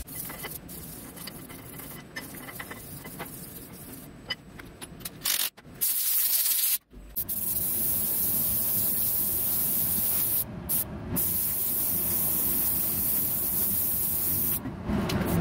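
Compressed-air spray gun spraying paint onto a Bosch diesel injector body: a steady, loud hiss that starts about seven seconds in after one short burst, with the trigger let go twice for a moment. Before it, quieter handling noise with small clicks.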